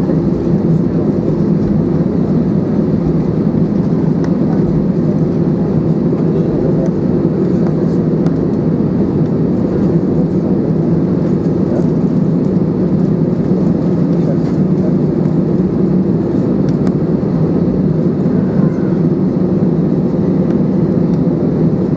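Cabin noise of an Airbus A320 taxiing, heard from a window seat over the wing: a steady drone from its CFM56 engines at taxi idle and the rolling of the aircraft, with a low hum running through it.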